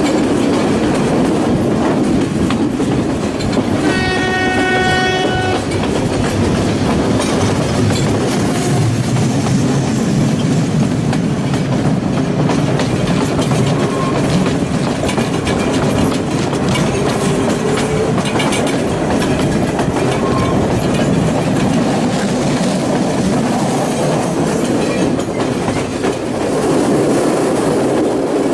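Passenger train running, heard from on board: a steady rumble and clatter of wheels on the rails. About four seconds in, the locomotive's horn sounds once, a single steady note lasting about a second and a half.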